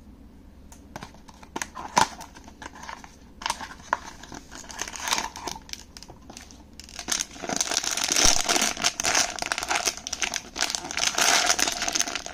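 Light handling clicks from a cardboard blind box being opened, then, from about seven seconds in, a foil toy bag crinkling loudly as it is handled and torn open.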